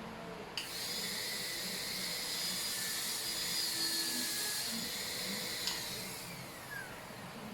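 High-speed dental drill whining steadily for about five seconds, then released and spinning down with a falling pitch.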